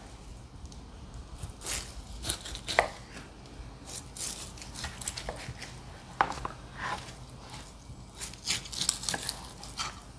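Knife slicing through smoked, sauced St. Louis-style pork spareribs on a plastic cutting board, with irregular short clicks and taps as the blade cuts between the bones.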